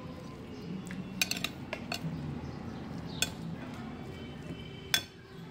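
Metal spoon clinking and scraping against a glass bowl of food: several short, sharp clinks, bunched in the first two seconds, then one a little after three seconds and one near the end.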